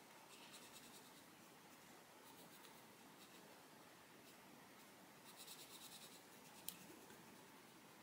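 Faint scratching of an Arteza Expert coloured pencil shading on colouring-book paper in quick back-and-forth strokes, louder for about a second around five seconds in, with one sharp tick just before seven seconds.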